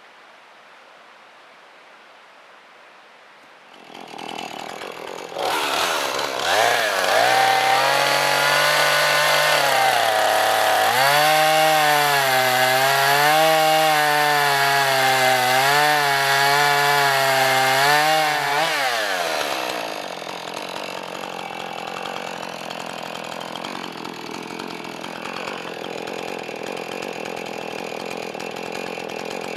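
A small engine starts up about five seconds in and runs at high revs for about thirteen seconds, its pitch rising and falling over and over, then winds down. A quieter steady noise follows.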